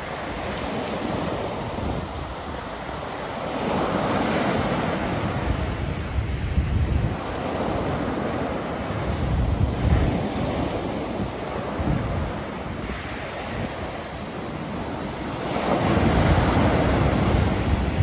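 Ocean surf breaking and washing up a sandy beach, a continuous rush that swells and ebbs every few seconds with each wave, loudest near the end. Gusts of wind rumble on the microphone.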